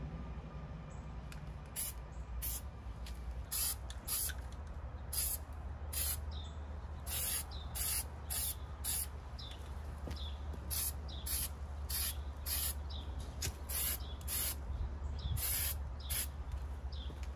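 Aerosol spray can of cold galvanizing compound being sprayed onto welded steel tubing in short hissing bursts, about twenty of them, roughly one every half second to second.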